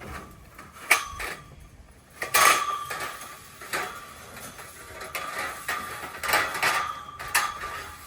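Steel scaffolding parts clanking against each other as they are handled: a series of sharp metallic knocks with a ringing tone, the loudest about two and a half seconds in.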